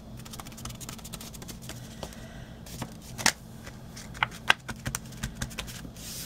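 Cardstock and paper being handled and pressed flat by hand on a craft mat: rustling and light clicks, with a sharper tap about three seconds in and a few more soon after. A steady low hum runs underneath.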